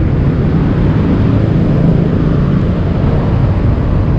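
Honda Click scooter running steadily while being ridden in traffic, its engine drone mixed with a steady low wind rumble on the helmet-mounted microphone.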